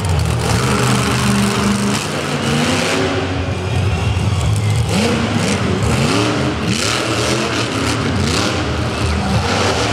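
Monster truck engine running hard under throttle, then revved up in a quick series of rising revs from about five seconds in.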